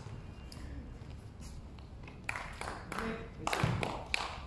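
Players' voices calling out across an outdoor court, with a few sharp taps in the second half.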